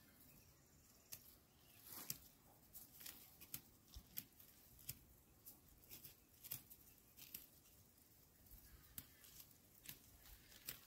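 Faint, irregular crisp snaps and rustles of dry barley heads being plucked by hand, one or two a second.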